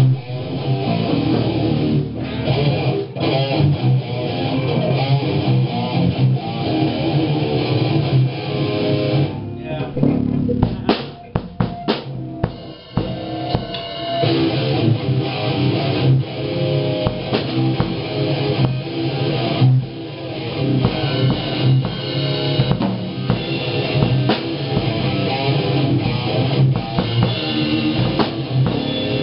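Electric guitar playing rock riffs over a drum kit. About ten seconds in, the playing drops away for a few seconds to scattered hits, then the full riff comes back in.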